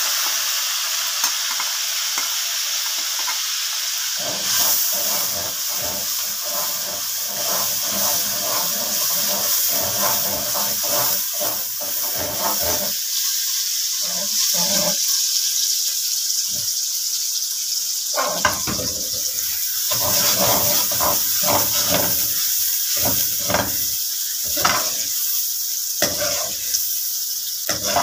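Sliced onions sizzling in hot oil in a metal karahi, the oil hot enough that the onions fry at once. From about four seconds in, a metal spoon stirs them, scraping and clinking against the pan again and again.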